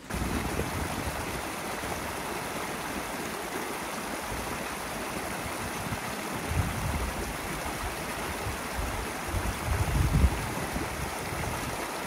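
Shallow mountain stream rushing over stones in a steady, even wash. Wind gusts buffet the microphone a little past halfway and again near the end.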